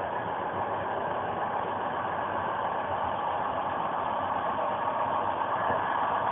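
Steady running noise of an Intercidades passenger train, heard from on board a Corail carriage, growing slightly louder toward the end.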